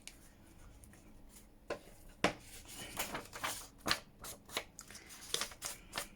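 Ink pad dabbed and rubbed around the edges of a piece of paper: a series of irregular sharp taps and scuffs, more frequent after the first couple of seconds.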